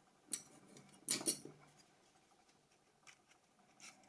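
Parts of a Nokia 2600 mobile phone clicking and scraping as it is taken apart by hand: a sharp click, a louder cluster of clicks about a second in, then a few faint ticks.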